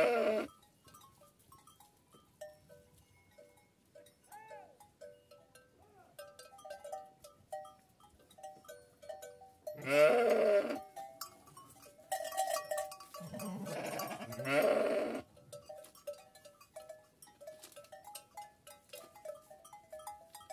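Kangal sheep bleating in a flock: a loud bleat right at the start, another about ten seconds in, and a longer, wavering one around thirteen to fifteen seconds in. Faint short ringing tones repeat between the calls.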